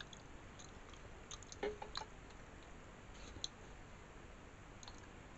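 Faint clicks and scrapes of a fork working into pizza in an aluminium foil tray, loudest in a short cluster about two seconds in, with a lighter tick or two later.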